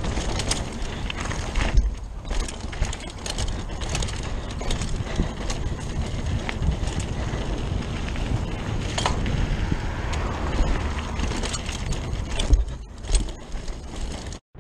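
Rockrider 540S mountain bike descending a dirt singletrack at speed: tyres rolling over dirt and small stones, with the bike rattling and many sharp clicks and knocks over a steady low rumble. The sound cuts out briefly near the end.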